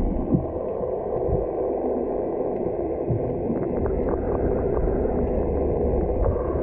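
Muffled, steady water rush and hiss heard through a camera held under water in its waterproof housing, dull and cut off in the highs, with a few faint ticks around the middle.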